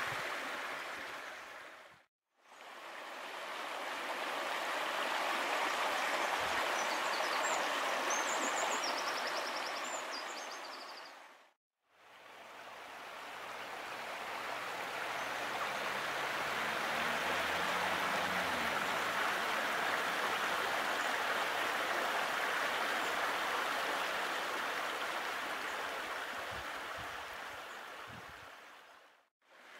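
Steady rushing of a running stream, dipping briefly to silence about two seconds in and again about twelve seconds in, with faint bird chirps in the first stretch.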